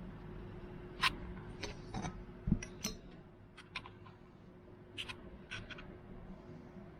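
Light metallic clicks and taps, about a dozen scattered over several seconds with one duller knock near the middle, from a restored Proto adjustable wrench being handled and worked. A faint steady hum runs underneath.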